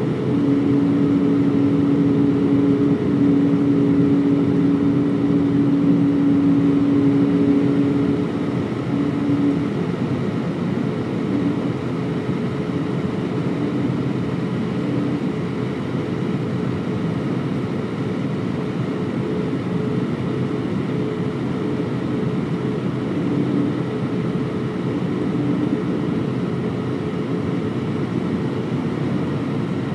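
Airliner cabin noise on the landing approach: a steady drone of jet engines and airflow with a low hum, which drops a little and gets slightly quieter about a third of the way through.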